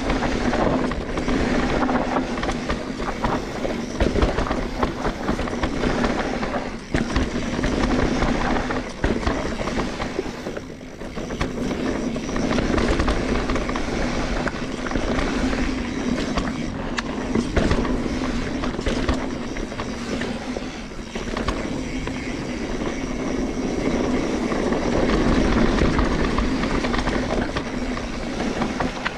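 Mountain bike ridden down a dirt trail: knobby tyres rolling over dirt and roots, with the bike rattling and clattering continuously over the bumps.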